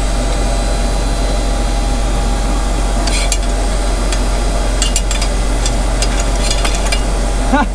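Tractor engine running steadily while metal parts of a planter are worked on by hand, with a scatter of sharp metallic clicks and taps from about three seconds in as the fallen-off row-unit scraper is refitted.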